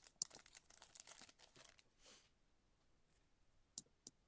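A trading-card pack wrapper being torn open and crinkled by hand for about two seconds, then two faint ticks near the end.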